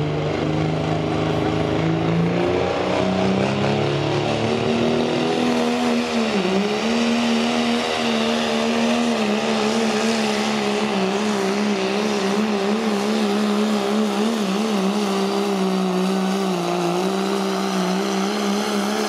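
Diesel pickup pulling a sled, its engine running flat out. The engine note climbs over the first few seconds, dips briefly about six seconds in, then holds at high revs with a wavering pitch.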